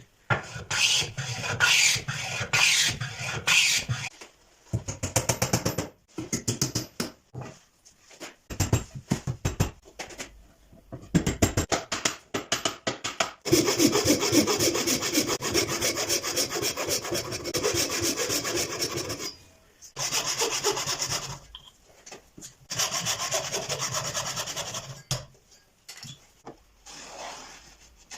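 A hand tool scraping across wood in rapid back-and-forth strokes, in runs of several seconds broken by short pauses.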